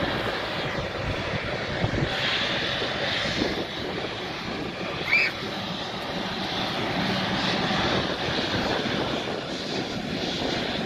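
Twin jet engines of a Boeing 777 running at low power as the airliner rolls slowly along the runway, a steady jet hiss and whine. A brief high rising chirp sounds once about five seconds in.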